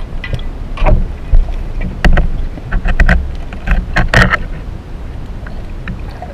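Underwater camera sound of a spearfisher moving with a speargun: a muffled rush of water with a string of knocks and clunks in the first four seconds, then a steadier rush as the diver swims up.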